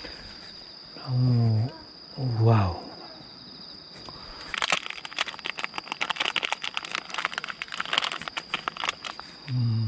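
A plastic packet of chopped nori crinkling and crackling as it is handled and shaken out over a bowl, a dense run of crackles starting about halfway through. Before it comes a man's short wordless hum, twice, and a steady high insect trill runs underneath.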